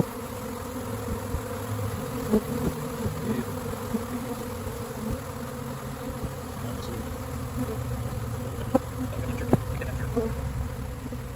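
Steady, dense buzzing of a large swarm of honey bees, with a few short sharp knocks on top.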